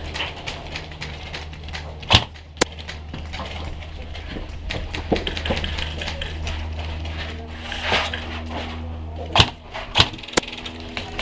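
Airsoft guns firing: scattered sharp clicks and snaps, with a few louder cracks about two seconds in and near the end, over a steady low hum.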